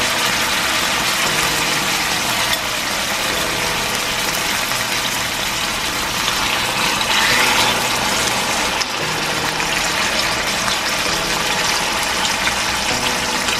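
Slices of marinated beef sirloin sizzling in hot oil in a stainless steel frying pan, a steady crackling hiss that swells about halfway through as a second slice is laid into the oil. A low steady hum runs underneath.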